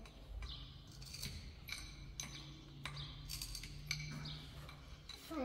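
Light clicks and taps of a hand tool working on a water pipe fitting set in a tiled wall, a dozen or so scattered irregularly, over a faint steady low hum.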